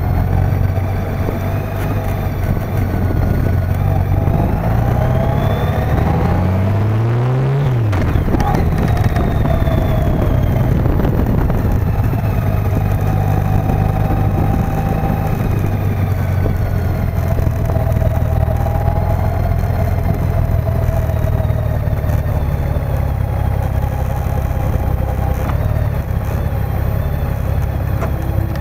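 Motorcycle engine running at low speed; its pitch rises as it accelerates from about five seconds in, drops sharply just before eight seconds, and then runs steadily.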